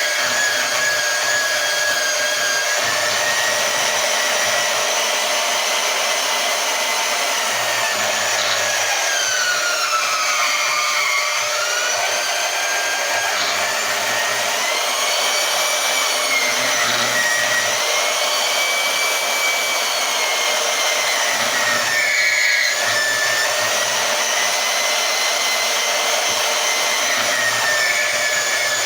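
Harbor Freight portable band saw cutting through steel rebar, its motor whine steady and sagging in pitch under load, most deeply about ten to twelve seconds in, then picking back up. The saw is straining on the thick rebar but keeps cutting.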